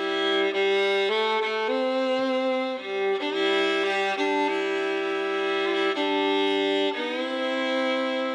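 Instrumental country music: a fiddle playing a slow melody of long held notes.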